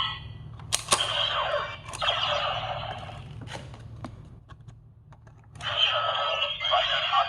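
Replica Kamen Rider Decade transformation belt (Decadriver): sharp plastic clicks of its mechanism being worked, mixed with electronic sound effects from the belt's speaker. The sound dips about four to five seconds in, then the electronic effects start up again, louder.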